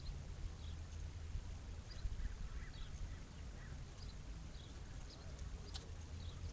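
Wind rumbling on the microphone, with small birds chirping here and there.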